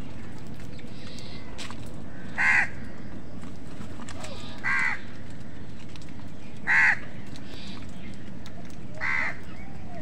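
House crows cawing: four loud single caws, each about two seconds after the last, with a couple of fainter caws between, over a steady background hiss.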